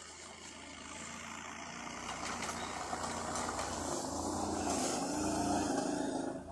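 Argo eight-wheel amphibious ATV engine running as it drives through deep snow, getting louder as it approaches, its note rising a little about four seconds in.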